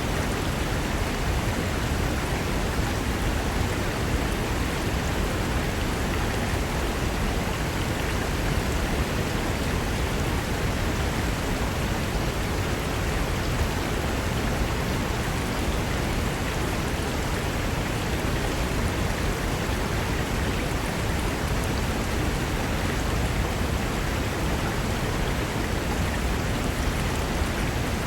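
Fast mountain river rushing over rocks: a steady, unbroken roar of water.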